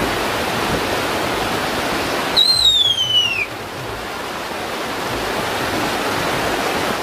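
Steady rushing outdoor noise. About two and a half seconds in, one high whistle glides downward over about a second.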